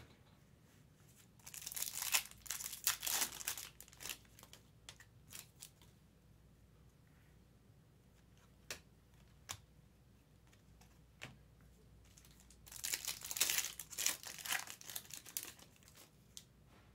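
Foil trading-card pack wrappers being torn open and crinkled, twice, about ten seconds apart, with a few light clicks of cards being handled in between.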